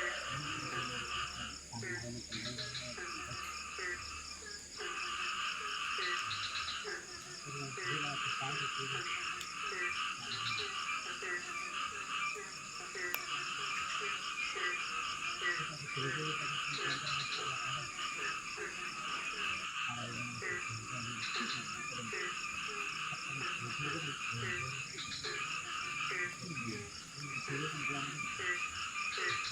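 A chorus of many frogs croaking, with short calls repeating over and over, over a steady high insect drone.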